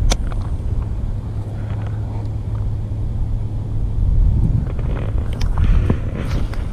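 Wind rumbling steadily on a body-worn camera microphone. A single sharp click comes right at the start, and light ticks and rustles are scattered from about five seconds in.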